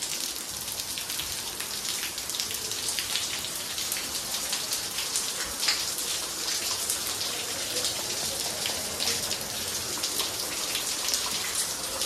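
Waterfall water dripping and splattering down from the rock overhead onto a wet stone floor: a dense, steady patter of drops with many sharp little ticks.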